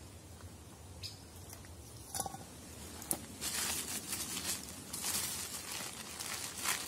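A green plastic bag crinkling and rustling as it is handled inside a backpack, starting about halfway through, after a few light knocks of metal camp pots being set down.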